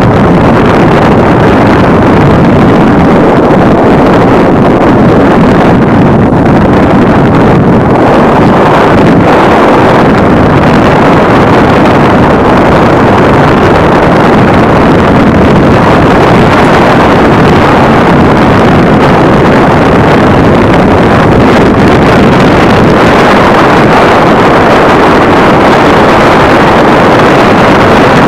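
Loud, steady wind roar on the microphone of a camera riding along on a moving bike, with no breaks or changes.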